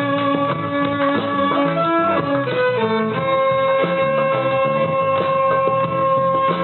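A band playing in rehearsal: a lead instrument holds long notes, sliding down in pitch and back up about halfway through, over a moving bass part and accompaniment.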